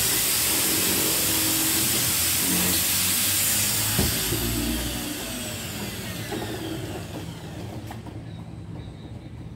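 Handheld electric power tool running at full speed with a loud hiss for about five seconds, then its motor winds down with a falling whine over the next few seconds.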